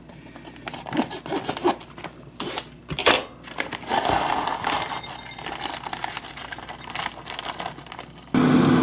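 Plastic food pouch crinkling and tearing as it is opened, with rustling as konjac fried rice is tipped out of it into a bowl. Near the end a steady frying hiss with a low hum starts suddenly, as an egg fries in a pan.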